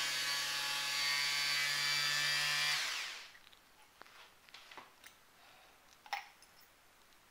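INGCO mini die grinder driving a small cutting disc through its flexible shaft, running free with a steady high whine. About three seconds in it is switched off and winds down. Then come a few light clicks and one sharper tap as the cut glass bulb is handled.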